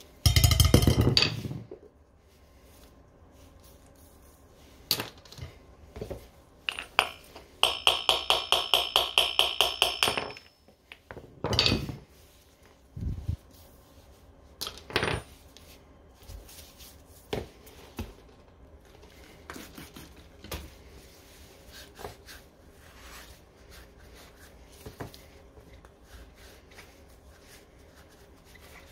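Steel hammer striking the axle and bearing of a Xiaomi M365 scooter's rear wheel hub to knock the bearing out. There is a quick loud flurry of blows at the start, then a run of about a dozen fast, ringing metal taps beginning about seven seconds in. A few more single knocks follow, then quieter clicks as the parts are handled.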